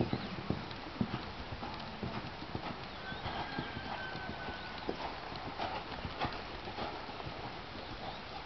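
Hoofbeats of a dressage horse working across a sand arena: a run of soft, uneven thuds, about two a second in places.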